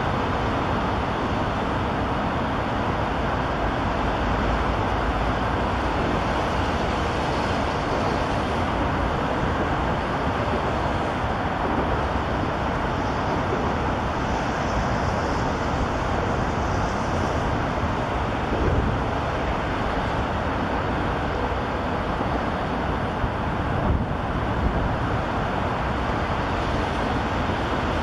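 Steady traffic noise from a highway interchange, a continuous even rush of passing vehicles with a few brief louder swells later on.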